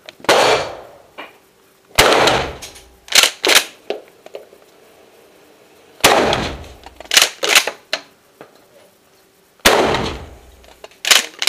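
Pump-action shotgun being fired: four loud shots with echoing tails in an indoor concrete range. After the later shots comes a quick double clack as the pump is racked back and forward to chamber the next shell.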